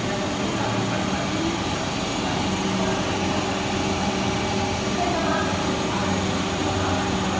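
Shredder machine running steadily: an even, continuous mechanical noise with a constant low hum.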